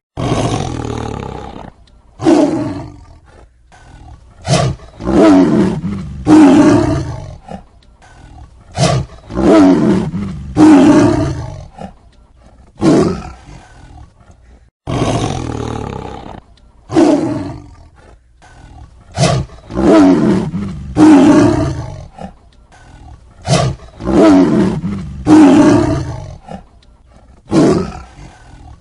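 Tiger roaring over and over, a dozen or so short roars of about a second each, with abrupt cuts where recordings are spliced together.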